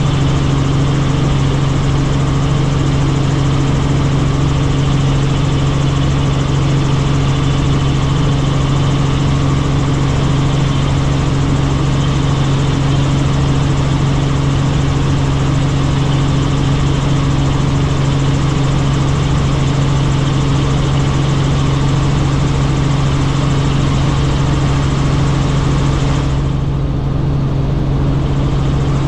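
Helicopter in flight: a loud, steady drone with a strong low hum running under a wide hiss. The higher hiss drops away for a couple of seconds near the end while the hum holds.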